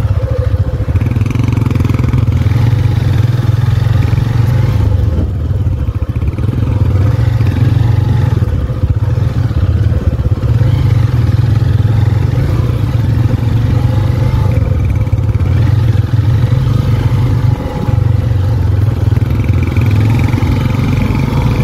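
Honda CB150F's single-cylinder engine running with a steady low note as the motorcycle is ridden through soft mud.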